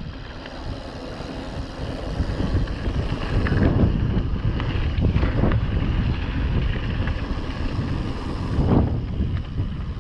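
Wind buffeting the microphone while riding a mountain bike, with scattered clicks and rattles from the bike over rough ground.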